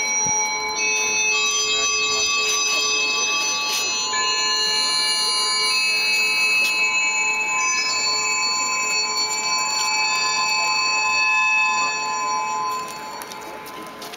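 Electronic soundtrack of a projection light show played over loudspeakers: several sustained tones held together, shifting to new pitches every few seconds. It drops away near the end.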